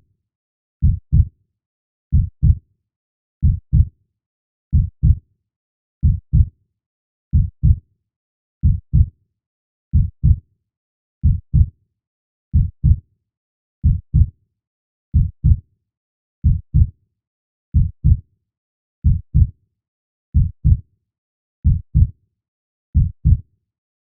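Heartbeat sound: a slow, steady lub-dub, each beat a pair of low thumps, repeating about every 1.3 seconds.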